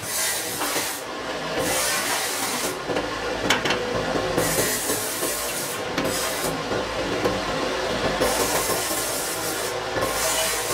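Hissing that comes in spells of one to two seconds, five times over, over a steady low rumble.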